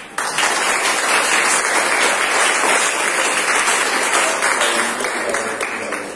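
A small seated audience applauding. The clapping starts suddenly, holds steady, and dies down near the end.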